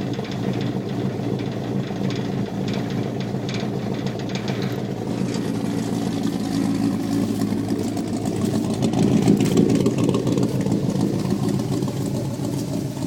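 Off-road truck engine idling steadily, swelling briefly louder about nine seconds in.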